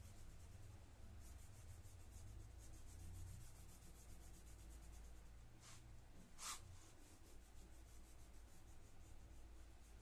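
Faint, fast back-and-forth strokes of a crayon shading on paper, with two brief louder rustles just past the middle as the sketchbook is shifted.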